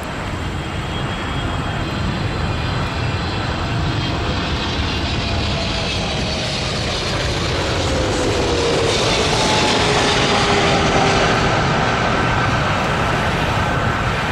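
Jet aircraft landing and passing by, its engine noise growing louder toward a peak about three-quarters of the way through, with an engine whine that slides down in pitch as it goes by.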